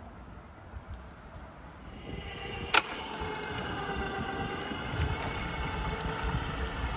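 Crane winch and its engine running under load, the cable hauling a half-buried shopping cart out of the mud. The sound swells in about two seconds in to a steady whine with several held tones over a low rumble, with one sharp click near three seconds in.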